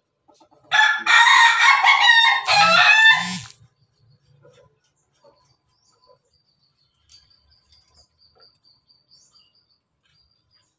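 Rooster crowing once, loud, for about three seconds, starting just under a second in.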